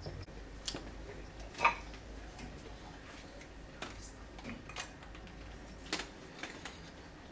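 Scattered short clicks and knocks, about seven in all, the loudest about a second and a half in, over a low steady hum.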